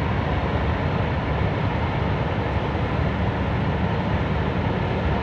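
Steady low mechanical rumble, like an engine running, unchanging throughout.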